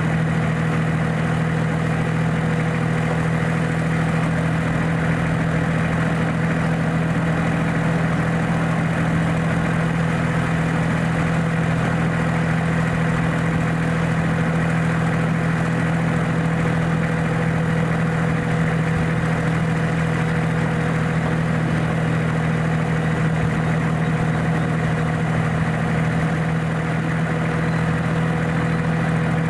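Miniature ride-on locomotive's engine running at a steady pitch while the train travels along the track, a constant hum with no change in speed.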